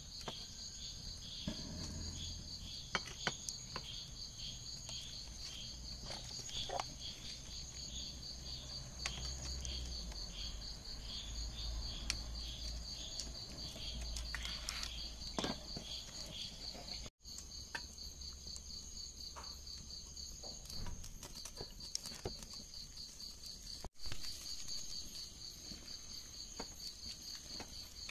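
Crickets chirping in a continuous high trill. Through the first half a second, lower chirp pulses a little faster than once a second. Scattered light clicks and scrapes run over it.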